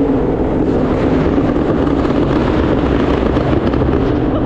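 Yamaha R1 crossplane inline-four engine running while the bike is ridden, mixed with steady wind rush on the microphone.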